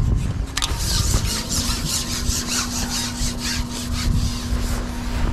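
Carbon fishing pole being shipped back by hand, its sections rubbing and rasping in a quick run of short strokes, with wind buffeting the microphone.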